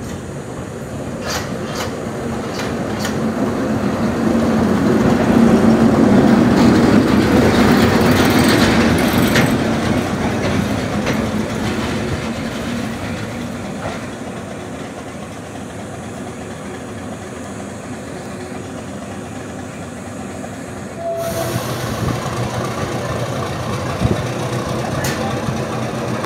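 Diesel locomotive running as it rolls slowly along the track, its engine sound swelling to a peak and then easing off, with occasional sharp clicks of the wheels over rail joints.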